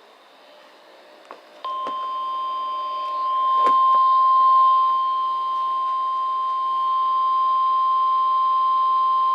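NOAA Weather Radio 1050 Hz warning alarm tone, sent as the tone-alert part of the required weekly test. One long, steady, high tone starts about a second and a half in and holds without a break.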